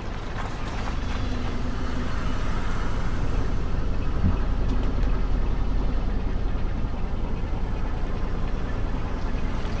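Car engine running with a steady low rumble as the car rolls slowly forward, with one short sharp crack about four seconds in.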